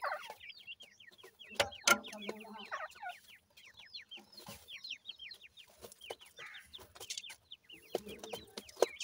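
Grey francolin chicks peeping in a rapid run of short, falling chirps, mixed with lower clucking notes. A few sharp clicks come about two seconds in.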